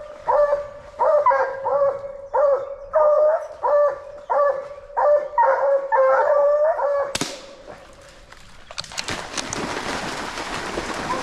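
Coonhound barking treed, short bawling barks about two a second, baying at a raccoon up the tree. About seven seconds in the barking stops with a sudden crash, and from about nine seconds a steady rush of splashing water takes over.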